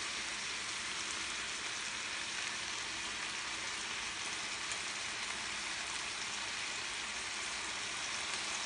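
Leftover rotisserie chicken pieces frying in a stainless steel sauté pan, a steady even sizzle, with soy sauce just added.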